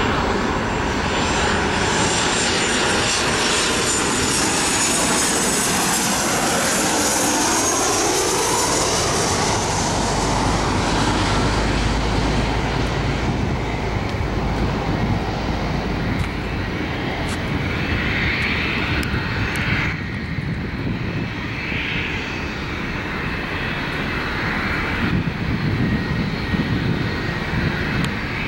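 Boeing 737-700's twin CFM56-7B turbofans passing low overhead on final approach, the whine falling in pitch as the jet goes by. The engine noise then goes on more weakly as the jet flies away down to the runway and touches down.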